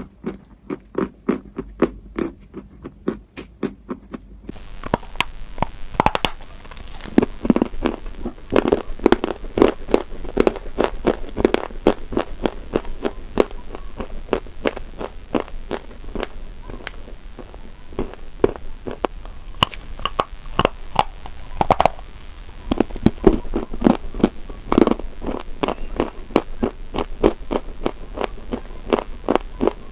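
Close-miked eating: rapid crunching and chewing of crisp food, many sharp crunches in quick succession. About four seconds in, a steady background hiss comes in under the crunches.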